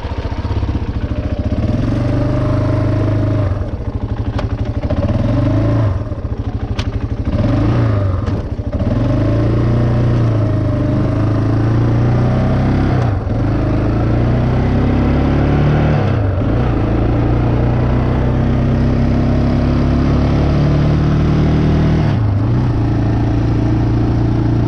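Yamaha Moto-4 350 ATV's single-cylinder four-stroke engine running under way on a ride, its note rising and falling with the throttle, with a few brief sharp drops as the throttle is let off.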